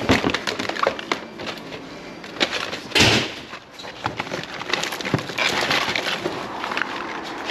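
Plastic food packaging and cardboard trays crinkling and knocking as packs are handled inside a plastic wheelie bin, with a louder crackle about three seconds in.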